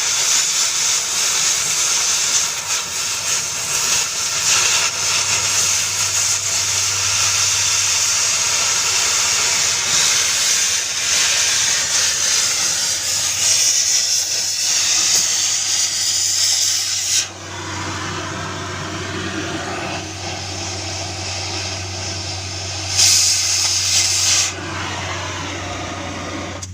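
Continuous loud hissing of metal being cut on an excavator part, over a steady low hum. About two-thirds of the way through it drops to a quieter hiss, then flares briefly near the end.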